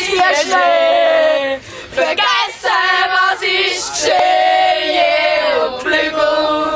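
A group of voices singing, with long held notes and two short breaks between phrases.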